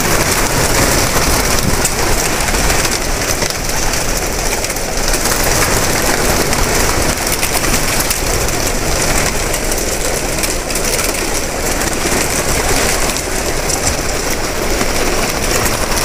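A large flock of domestic pigeons flying about: a steady, dense rain-like flutter of many wingbeats, mixed with pigeon calls.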